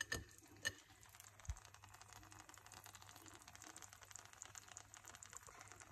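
Faint sizzle of eggs and sausage slices frying in oil in a pan, with a few light clicks in the first second and a soft thump at about a second and a half.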